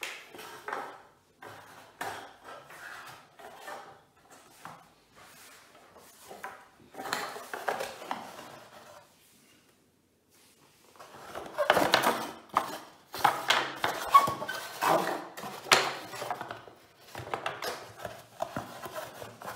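Plastic Scalextric track sections being handled, fitted and clicked together on a wooden floor: irregular clicks, knocks and scrapes. They pause for about a second and a half near the middle, then come back busier and louder.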